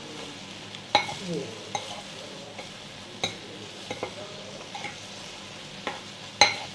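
Hot clay pot of ginger-and-scallion squab sizzling steadily, with a metal spoon clinking against the pot several times, sharpest about a second in and near the end.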